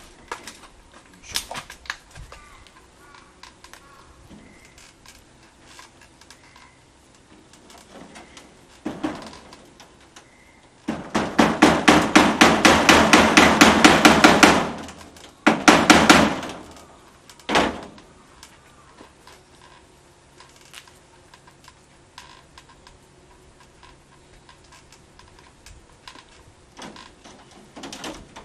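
Rapid knocking and rattling on a corrugated plastic roof panel being worked by hand: a dense run of quick knocks for nearly four seconds midway, then a shorter burst and a single knock, with quieter handling knocks around them.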